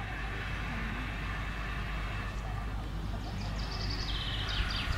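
Outdoor background: a steady low rumble with faint distant voices, and a quick run of high chirps near the end.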